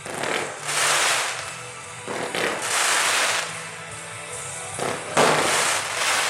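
Fireworks going off in a string of bursts with crackle, about four of them, the loudest about five seconds in.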